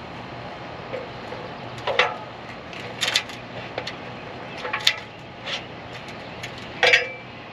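Scattered knocks and clanks of a gutter downspout and its fittings being handled and fixed in place, about four louder ones with a short ring, over a steady low hum.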